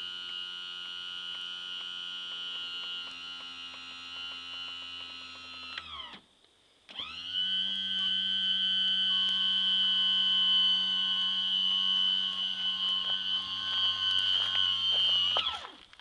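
Power trim/tilt motor on a Mercury 115 outboard whining steadily as it tilts the outboard up. The whine stops about six seconds in, starts again about a second later and runs until near the end, its pitch falling each time it stops and rising as it starts.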